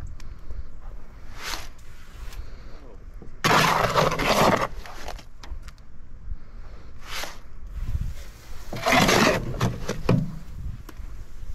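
Shovel scooping wet concrete in a wheelbarrow, with rough scraping strokes of about a second each: loud ones near the start, a few seconds in and near the end, and fainter short scrapes between.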